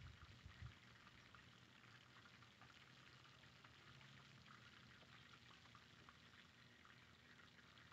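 Near silence: faint outdoor ambience with a light, even crackling hiss, and a few low rumbles in the first second.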